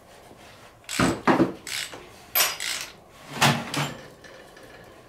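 Metal tools and engine parts knocking and clinking against each other, about half a dozen sharp knocks with a short ring.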